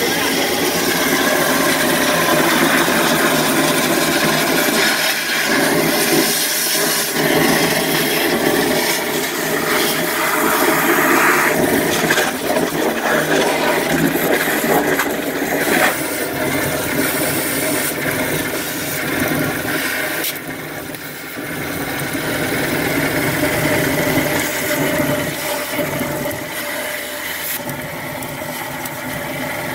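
A hydro jetter's high-pressure water jet blasting through a clogged drain line, water rushing and spraying as it flushes out a blockage of food waste and roots, over the steady running of the jetter's engine. The rush dips briefly about two-thirds of the way through.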